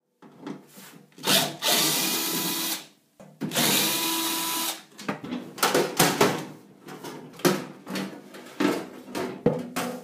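Power drill driving out the screws of a microwave oven's outer casing, running twice for about a second and a half each with a steady whine. This is followed by the sheet-metal cover rattling and knocking as it is worked loose and lifted off.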